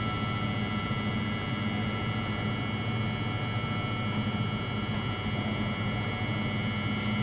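Stationary Newag Impuls 2 electric multiple unit humming at the platform: a steady low hum with several constant high-pitched whining tones from its onboard electrical and ventilation equipment running while it stands.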